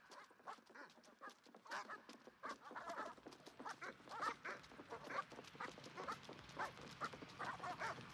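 Faint soundscape of many animals calling in short, overlapping calls, building slowly in level.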